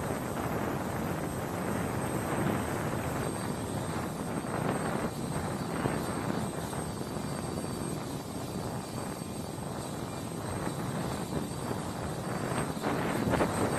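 MH-60R Sea Hawk helicopter running on the ground, its twin turboshaft engines and rotors making a steady noise that swells a little near the end.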